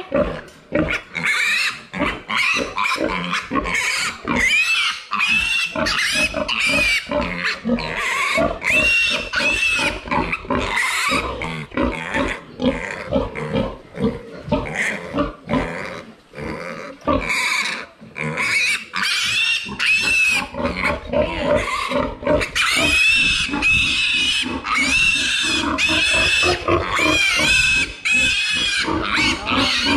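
Piglet squealing loudly and without let-up, short high squeals several a second. It is the distress call of a piglet held upside down by its hind legs while being castrated.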